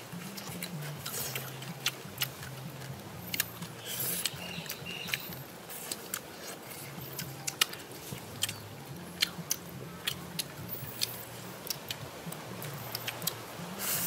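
Close-up chewing and lip smacking of people eating herb leaves, irregular wet clicks many times a second. Quiet background music with a stepped low bass line runs underneath.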